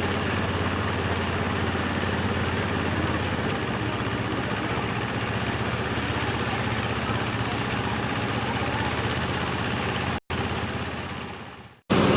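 Engine of rice-harvesting machinery running steadily with a low hum. About ten seconds in it drops out for a moment, then fades away and cuts off, and a louder engine sound comes in at the very end.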